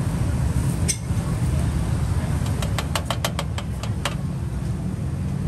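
Metal spatula clicking against a flat steel griddle in a quick run of about ten strokes as it chops down between long bread rolls, with a single click about a second earlier. Under it a steady low mechanical rumble.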